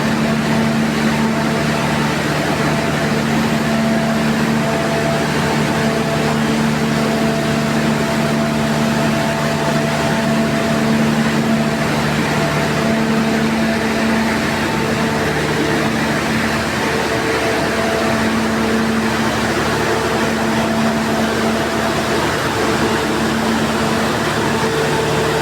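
Machinery running steadily in an engine house: a loud, even mechanical noise with several steady hums. One of the lower hums drops out about two-thirds of the way through.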